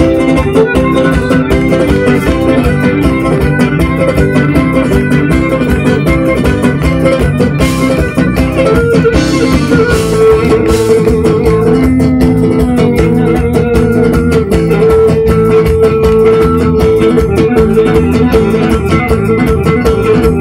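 Live Cretan folk dance music from a band with plucked lutes, strummed in a fast, steady rhythm, with a held melody line over it from about halfway through.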